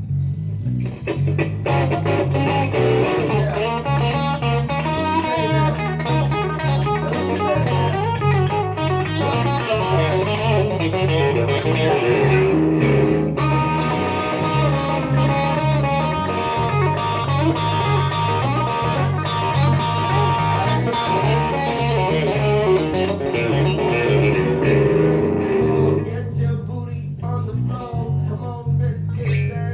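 Live blues-rock instrumental: an electric guitar plays lead lines, some notes held, over a repeating electric bass riff. Near the end the lead guitar drops back, leaving mostly the bass groove.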